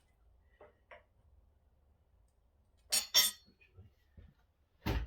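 Metal parts or tools clinking and knocking during the dismantling of an old power hacksaw: two sharp ringing metallic clinks about three seconds in, then a heavier, duller knock near the end.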